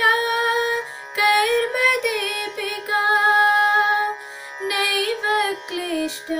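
A woman singing a Sanskrit song with instrumental accompaniment, in several phrases of long held notes that bend and turn between pitches, with short breaks between phrases.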